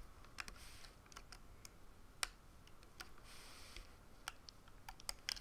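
Plastic loom hook clicking and tapping against the pegs of a plastic Rainbow Loom as rubber bands are looped: faint, irregular small clicks with a couple of soft rustles between them.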